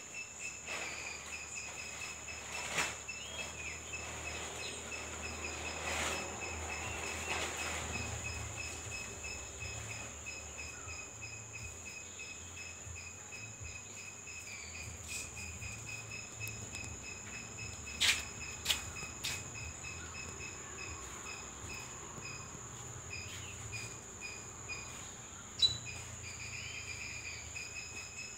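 Outdoor insect chorus: a fast, even pulsing trill and a steady high-pitched whine, with a low hum beneath. A few sharp clicks come through about 3, 18 and 26 seconds in.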